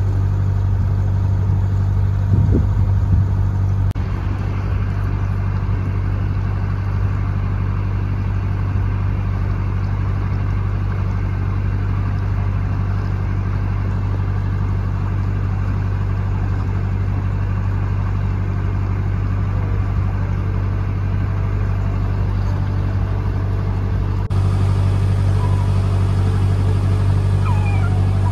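A narrowboat's diesel engine running steadily under way, a low even throb, getting a little louder about 24 seconds in.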